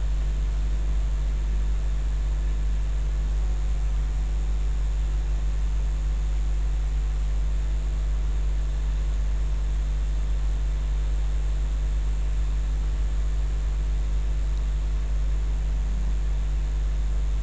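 Steady low hum with a hiss over it, holding the same level with no starts or stops.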